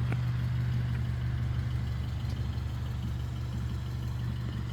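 2000 Honda CR-V's four-cylinder engine running with a steady low hum.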